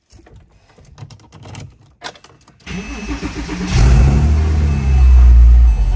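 A 2006 Porsche Cayman S's 3.4-litre flat-six being started on a freshly fitted lithium-ion battery: a few faint clicks, then the starter cranks briefly, the engine catches about a second later and revs up, then settles into a steady idle near the end. It fires right up.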